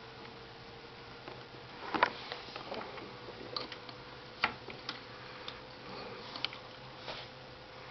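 Irregular light clicks and taps from a cat batting at a speaker cable, the sharpest about two seconds in.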